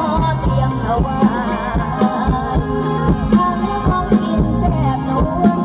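Mor lam band music: a wavering sung melody over steady bass notes and a regular drum beat.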